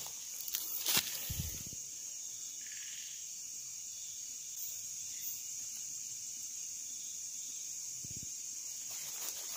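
Steady high-pitched chorus of forest insects, with a few sharp clicks in the first second and short low thumps about a second and a half in and again near the end.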